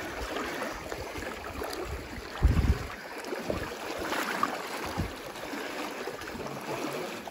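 River water flowing and splashing around the legs of people wading through it, with a low bump about two and a half seconds in.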